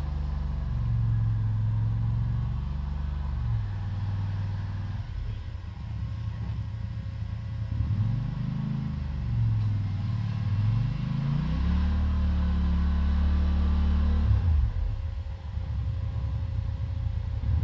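Engine of a small snow-plowing vehicle running steadily, its pitch dipping and rising a few times as the load changes, then holding higher for a couple of seconds before easing off briefly near the end.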